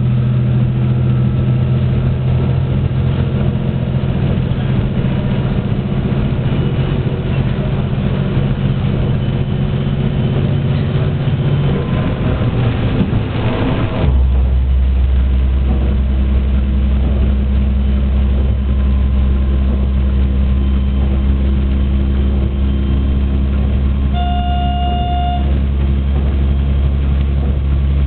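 KiHa 120 diesel railcar's engine and transmission running as the train travels along the track, a steady drone under rail noise. About halfway through, after a brief swell of noise, the drone drops to a deeper, lower pitch, as when the transmission changes stage. Near the end a short horn note sounds for about a second.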